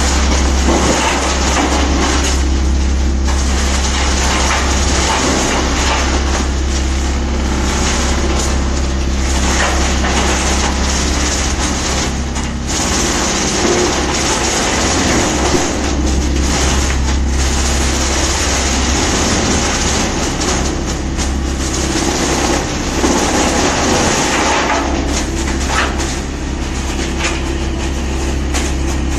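Large wood chipper running: a loud, steady low hum under a rough, noisy layer that eases briefly every few seconds.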